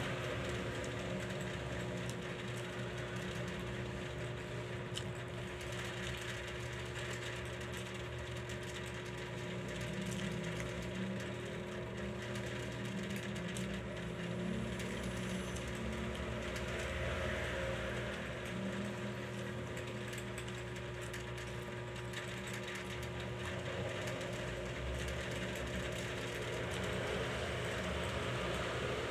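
Steady mechanical hum holding a few constant tones, unchanging throughout.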